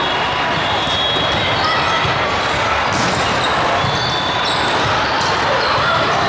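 Volleyball rally: several sharp hits of the ball over a steady din of voices and play from a large, busy indoor hall.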